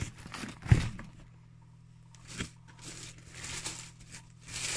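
Packaging being handled while a box is unpacked: a sharp knock just under a second in, then crinkling and rustling.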